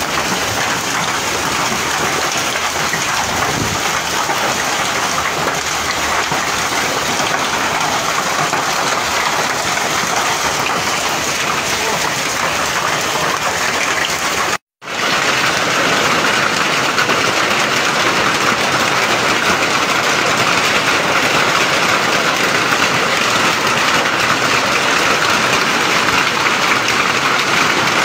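Heavy hail and rain pelting down on wet pavement: a loud, steady hiss that cuts out for a split second just before halfway, then resumes.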